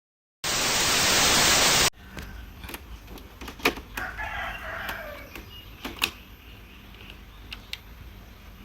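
A loud burst of hiss about a second and a half long, cut in sharply after a moment's dropout. Then a rooster crowing in the background, with a few sharp clicks.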